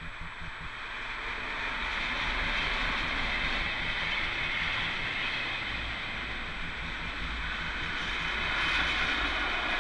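Electric locomotive hauling a container freight train past at close range: the rumble and clatter of the wagons' wheels on the rails, building over the first two seconds and then holding steady.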